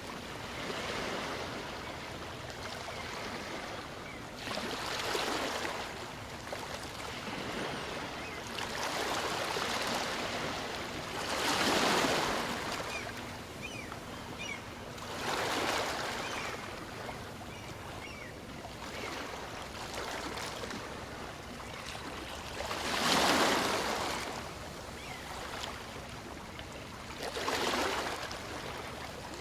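Small waves on a calm sea washing in and out on a beach: a steady hiss of surf that swells every few seconds as each wave breaks, the two strongest about twelve and twenty-three seconds in.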